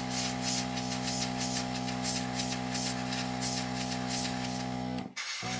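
Airbrush spraying paint with a lot of air and very little paint: a high hiss that swells and fades in short pulses over a steady low hum. Both cut out for a moment near the end.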